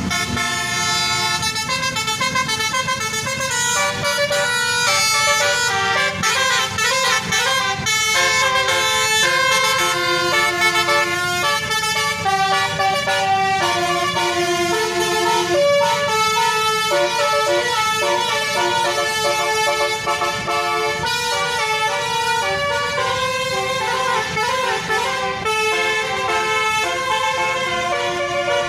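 Telolet bus horns: multi-tone air horns playing melodic tunes, stepping from note to note without a break, with warbling passages about seven seconds in and near the end.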